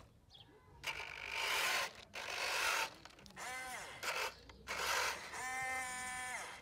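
Huina RC excavator loading gravel: bursts of scraping and rattling stone, and twice the whine of its small electric motor, once rising and falling and once held for about a second near the end.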